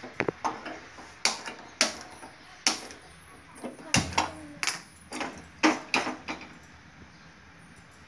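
Irregular sharp knocks and clatter of metal kitchenware being handled, about a dozen over six seconds. One knock around four seconds in rings briefly, like a metal pot set down; after that it goes quiet.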